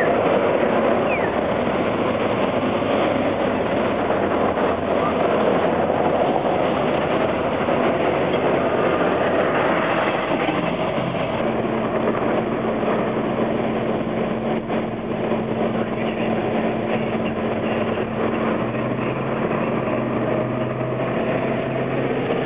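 A Toronto CLRV streetcar running past on the street rails amid city traffic noise. About halfway through the scene changes to street noise with a steady low hum, joined later by a lower second hum.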